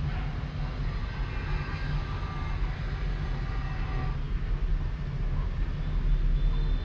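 Steady low rumble of distant city traffic, with a few faint high tones in the middle.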